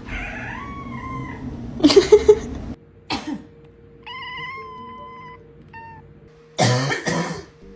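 A cat meowing a few times, one call held steady, between three loud, harsh coughing bursts. The last burst is the loudest.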